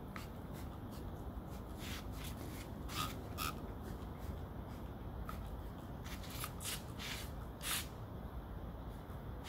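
A pin brush being drawn through a Shetland sheepdog's thick double coat: several brief rustling swishes at irregular intervals.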